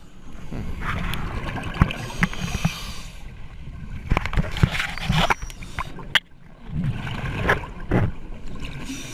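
Scuba diver breathing hard through a regulator, heard on an underwater camera: heavy breaths and gurgling exhaust bubbles, with a few sharp knocks.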